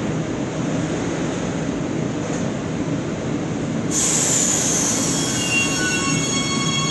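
Metro train running through the tunnel with a steady low rumble. About four seconds in, the sound jumps louder as a train passes close along the platform, and a high wheel squeal of several steady shrill tones sets in and builds.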